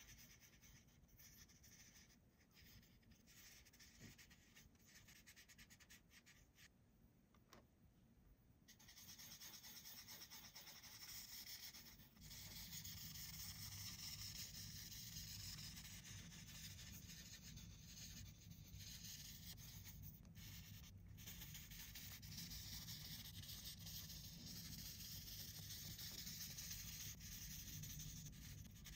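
Marker tip rubbing back and forth across paper while coloring in a picture, faint at first and becoming louder and continuous from about nine seconds in.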